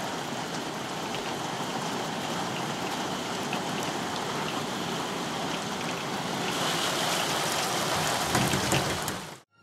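Rain falling outside a window, a steady hiss that grows louder about two-thirds of the way through.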